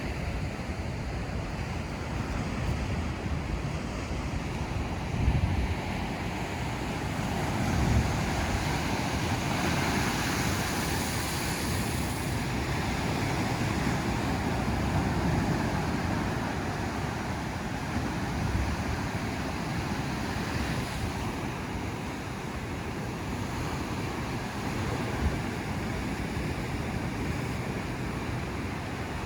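Ocean surf breaking and washing on a beach in a continuous rush, with a louder hissing surge about ten seconds in. Wind buffets the microphone with low thumps.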